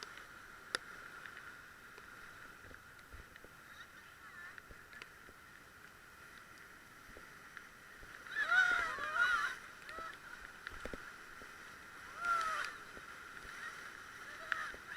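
Rafters yelling and whooping as the raft runs a whitewater rapid: two loud bursts of shouting, a longer one past the middle and a short one near the end. Before that there is only a faint steady whine and a few light ticks.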